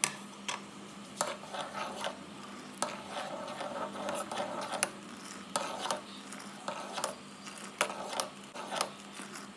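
Kitchen utensils clinking and scraping against a container: about a dozen sharp clicks, with short stretches of scraping between them.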